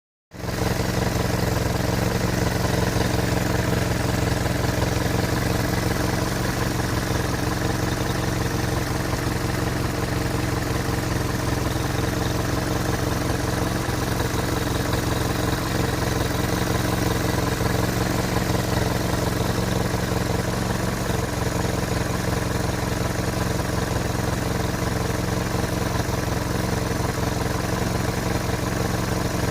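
Hotchkiss M201 jeep's four-cylinder flathead petrol engine idling steadily, at an even speed throughout. The owner is unsure whether this engine noise is normal.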